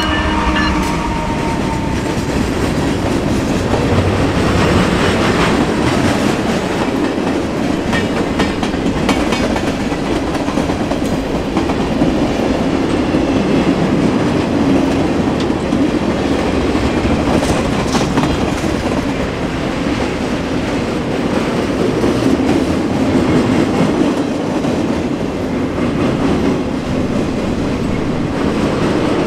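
A long train of freight cars rolling past at close range: a steady, loud rumble and clatter of steel wheels on the rails.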